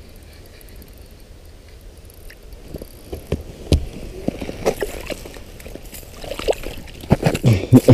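A bass splashing and thrashing in the water of an ice-fishing hole as it is pulled up and grabbed by hand. There are irregular sharp knocks and splashes from about three seconds in, loudest near the end.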